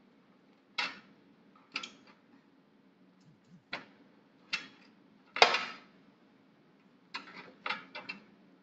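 Kitchen knife clacking and scraping against a metal baking tray while cutting into a whole roast chicken: separate sharp clicks every second or so, the loudest a little past the middle, then several in quick succession near the end.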